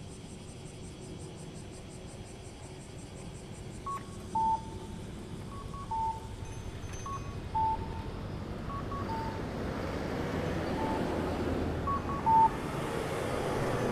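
Electronic pedestrian-crossing signal sounding a cuckoo-style two-note call, a short higher note then a longer lower one, repeating about every second and a half from about four seconds in. Road traffic noise builds toward the end.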